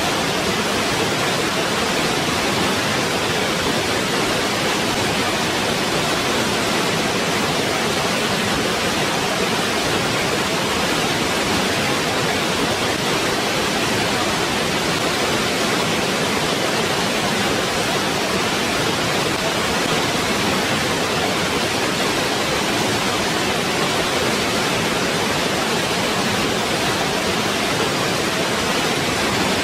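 Waterfall: water falling and splashing in a steady, even rush with no changes.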